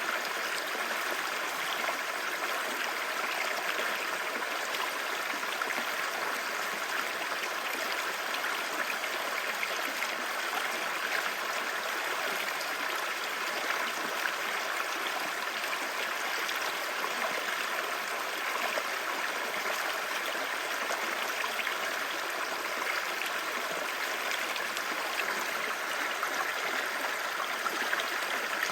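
A clear-water river babbling, a steady, even rush of flowing water that runs on without a break.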